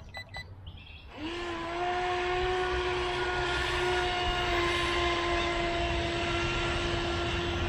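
WLToys WL912-A RC speed boat's 390 brushed motor whining at full throttle as the boat runs across the water. The whine starts about a second in, rises briefly, then holds one steady pitch over a rushing hiss.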